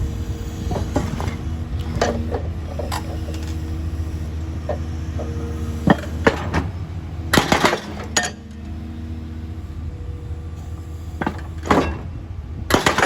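An engine running steadily with a low hum, under a series of sharp knocks and clanks, loudest around seven to eight seconds in and again near the end.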